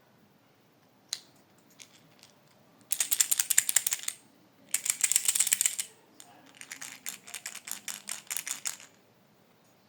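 Rapid, fast clicking in three bursts of one to two and a half seconds each, after a few single clicks.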